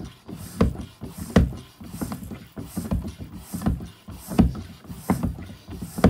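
Foot pump being worked in a steady rhythm, a little more than one stroke a second, each stroke starting sharply with a rush of air. It is forcing air pressure into a blocked microbore copper heating pipe to try to clear the blockage.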